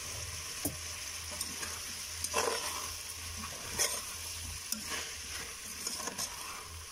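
Sliced sausages and onion sizzling as they fry in an enamel pot, stirred with a metal spoon that clinks and scrapes against the pot several times.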